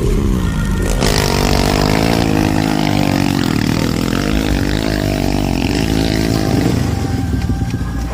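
Dirt bike engine revving on a trail ride, its pitch dropping in the first second, climbing through the middle and falling again near the end.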